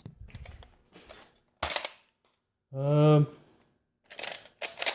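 Plastic Nerf foam-dart blaster being worked by hand: rattling clicks of the priming action, a sharp snap about a second and a half in, and more clatter near the end, as the blaster gives trouble. A short vocal grunt sounds about three seconds in.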